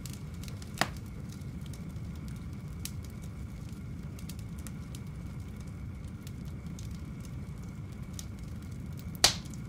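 Fire crackling: a steady low rumble with scattered small pops, and two sharp louder pops about a second in and near the end.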